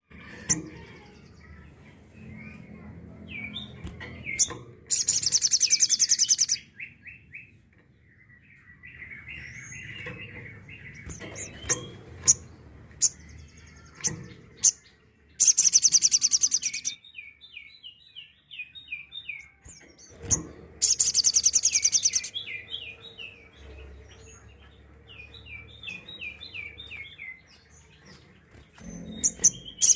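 Sogok ontong (little spiderhunter) singing its rapid-fire 'tembakan' song. It gives very high, dense trills of about a second and a half each, three times. Between the trills come runs of short, quick, lower chirps.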